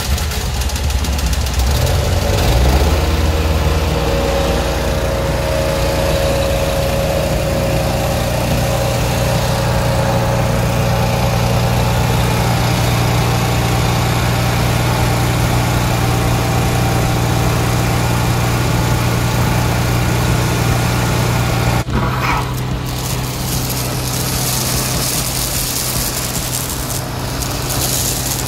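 Honda petrol engine driving a Masport rotary vane vacuum pump. It is uneven for the first few seconds, then settles into a steady run. About 22 seconds in the sound changes abruptly, and a strong hiss of air and water being sucked up the 50 mm suction hose joins the engine.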